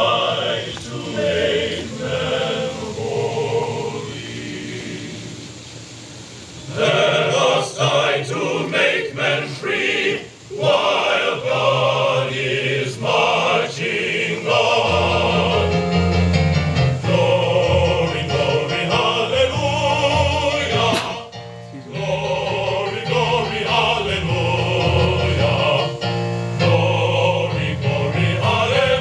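An Army men's choir singing, quieter for a few seconds early in the passage and with a short break about three-quarters of the way through.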